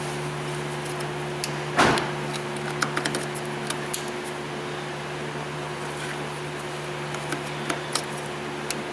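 Small clicks and knocks from handling and plugging in a car's wiring connector, with one louder knock about two seconds in, over a steady low hum.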